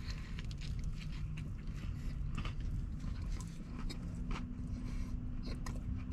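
Chewing a mouthful of crunchy breaded chicken sandwich, with faint crunches and mouth sounds over a low steady hum.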